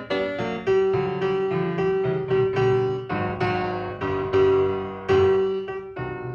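Solo piano music: a lively tune of quick, separate notes, several a second, with one middle-register note struck again and again.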